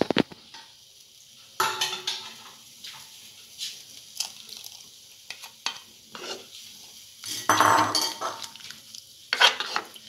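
A ladle stirring a thin coconut curry in an earthenware pot, with irregular scrapes and knocks against the pot's sides.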